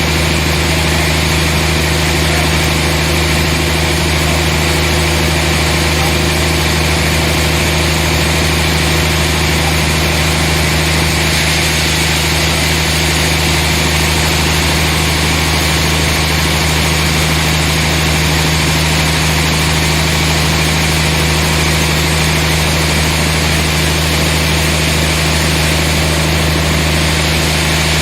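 Sawmill machinery running: a loud, steady drone that does not change.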